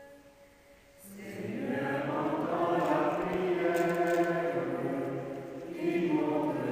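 A group of voices singing a hymn together, coming in about a second in with long held notes, easing off briefly near the end before the next phrase starts.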